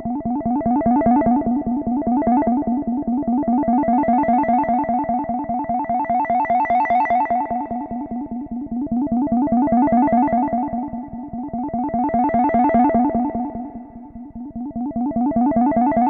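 Moog Subharmonicon analog synthesizer playing a fast sequenced pattern of short repeated notes on steady pitches, its tone swelling brighter and duller every few seconds. The level dips briefly near the end.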